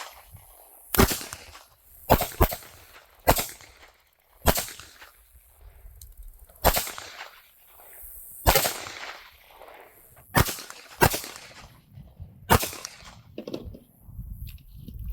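Two .380 ACP pocket pistols firing full metal jacket rounds: about eleven sharp shots at uneven spacing, mostly a second or two apart, with a couple fired in quick pairs.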